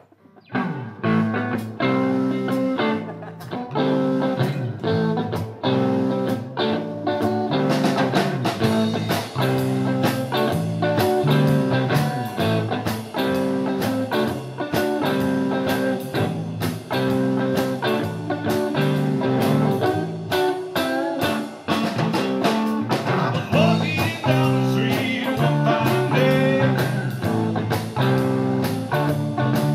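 Blues rock played live by a three-piece band: electric guitar riffing over bass guitar and a drum kit. It kicks in abruptly about half a second in.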